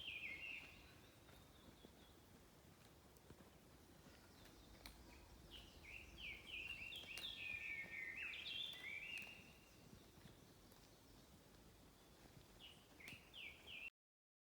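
Faint birdsong: quick runs of short, downward-sliding chirps, heard in a burst at the start, a longer spell in the middle and again near the end, over a soft outdoor hiss. The sound cuts off abruptly shortly before the end.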